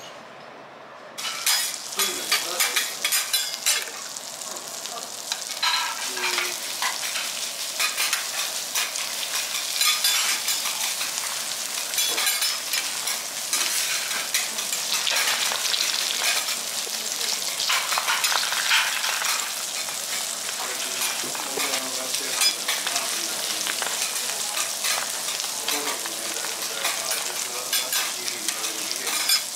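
Japanese rockfish fillet and an asparagus spear sizzling in oil on a teppanyaki griddle, a dense crackling hiss full of small spits and pops that starts suddenly about a second in. Steel spatulas scrape and tap against the griddle now and then.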